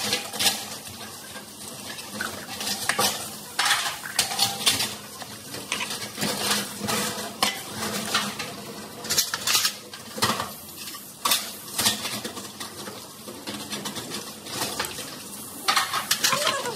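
Metal spoon clinking and scraping against a glass jar and a stainless coffee pot as Turkish coffee is measured out and stirred, in irregular clinks. Near the end, stacked steel serving trays clatter as they are lifted.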